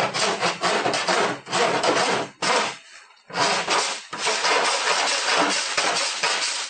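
Body file rasping back and forth across an aluminum panel in quick strokes, filing off the stub of a welded aluminum pin, with a short pause about three seconds in.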